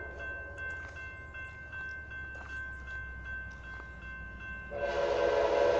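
Grade-crossing warning bell ringing steadily. About five seconds in, the horn of the approaching Amtrak locomotive starts sounding loud, a chord of several notes held into the end.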